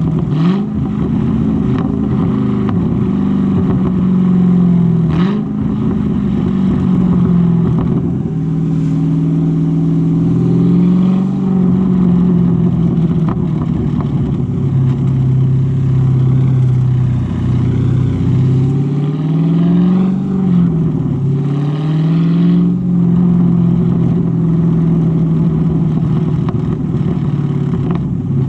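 Dodge Challenger T/A 392's 6.4-litre HEMI V8 with an aftermarket exhaust, heard while driving. The engine note rises and drops back several times as the car accelerates and eases off, and there are a couple of brief sharp clicks, one near the start and one about five seconds in.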